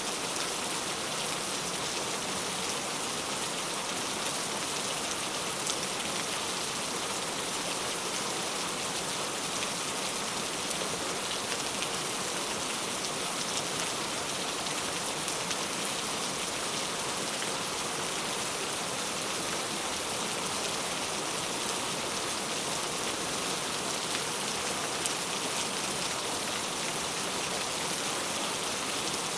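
Steady rain falling on a surface, an even hiss of drops with a few faint sharper ticks.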